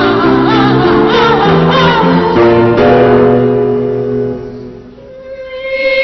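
A group of altar boys singing with instrumental accompaniment, ending on a held chord that fades out about five seconds in. A new steady held note begins just after.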